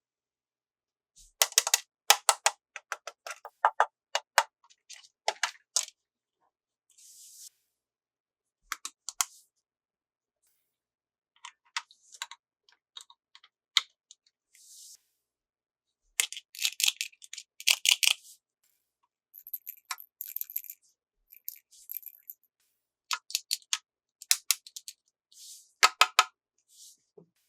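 Plastic toy parts and packaging being handled, in bursts of rapid sharp clicks and crinkles separated by silent pauses.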